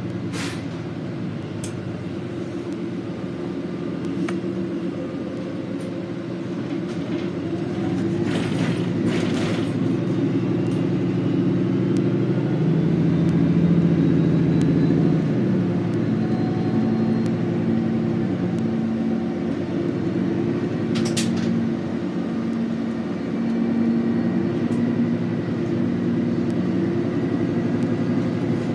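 Interior ride noise of a 2019 Nova Bus LFS Hybrid city bus under way: a steady low rumble of drivetrain and road, with a faint whine rising in pitch as the bus gathers speed. A few short rattles or knocks come through, near the start, around a third of the way in, and again later.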